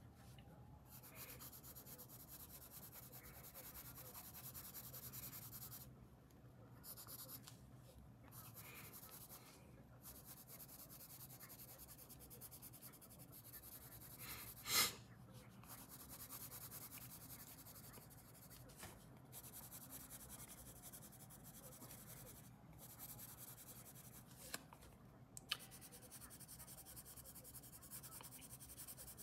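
Faint scratching of a red coloured pencil shading on paper, in steady strokes with short pauses, and one brief louder noise about halfway through.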